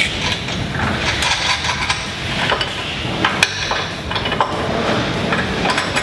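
Scattered metal clicks and clinks as a boom bracket and its bolts are fitted by hand onto an aluminum sprayer boom, over a steady background noise.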